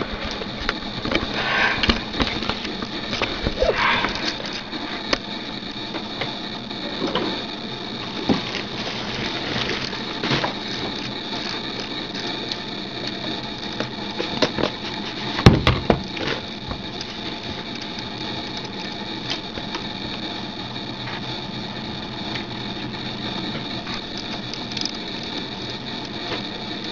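Handling noise from a handheld camera, scattered rustles, clicks and knocks with the loudest knock about halfway through, over a steady electronic hum with a high whine.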